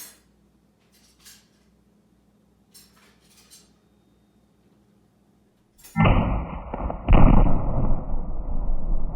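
A few faint clicks, then about six seconds in homemade tannerite (a binary explosive target) detonates. The sudden loud blast turns into a long rumbling roar, with a second sharp crack about a second after the first.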